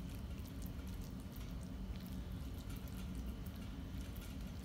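Faint scattered ticks and soft scrapes of a silicone slotted spatula spreading fried minced beef across a ceramic plate, over a steady low background hum.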